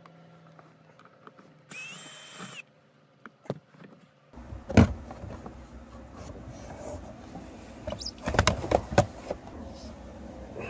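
A cordless drill runs in one short whining burst of about a second, driving out a blower motor screw with an 8 mm socket. Then come sharp knocks and rattles of plastic as the blower motor is worked down out of its housing under the dash. One loud knock comes about five seconds in, and a cluster of knocks follows near the end.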